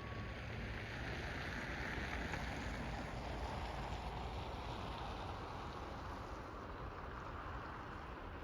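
The steady tone of a Hesa Fredrik electronic warning siren cuts off just after the start, leaving the pause between its blasts. What follows is outdoor background noise: a low rumble and a hiss that swells about two seconds in and slowly fades.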